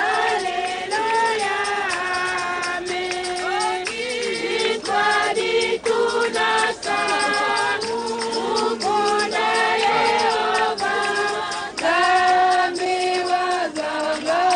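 A group of voices singing together in long held notes, unaccompanied.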